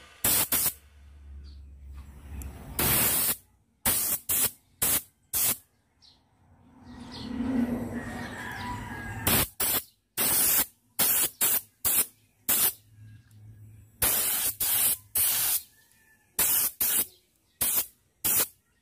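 Short bursts of spray paint hissing, repeated about two dozen times with brief gaps between, with a softer, longer rush of noise about seven seconds in.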